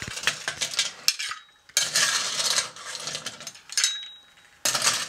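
Ice cubes clattering into a glass as it is filled, in bursts with a quiet stretch after the middle and a fresh burst near the end.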